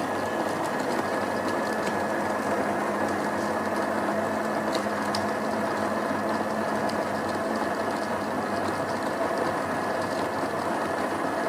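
Built-in coffee grinder of an LH espresso machine running steadily, grinding coffee beans straight into the portafilter.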